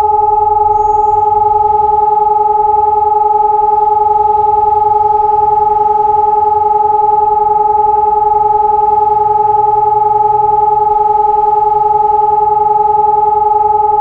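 SiRcom eRotor 750 electronic siren sounding one steady, unwavering tone, the continuous test tone of a siren test.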